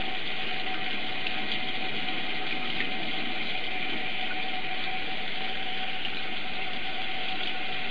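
Tap water running steadily into a sink: an even hiss with a faint steady whine under it.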